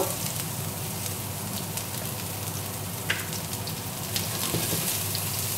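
Olive oil sizzling steadily with a light crackle around garlic cloves and freshly added chopped red onion in a ceramic frying pan, over moderate heat. A wooden spatula gives a few light ticks against the pan.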